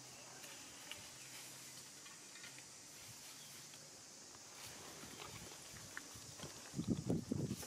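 Faint outdoor background with a steady high hiss and a few light ticks; near the end, a quick irregular run of low thumps and rumbles.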